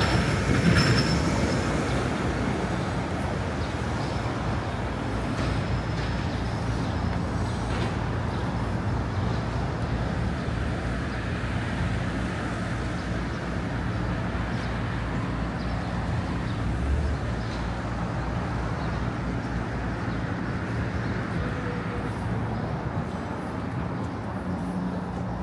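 Steady city street traffic, with the engines of passing and idling vehicles making a continuous low hum.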